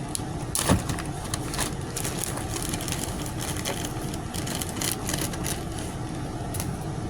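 A steady mechanical background drone, with scattered small clicks and rustles of objects being handled close by; one louder knock about a second in.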